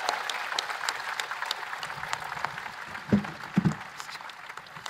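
Audience applauding, the clapping dying away over the few seconds.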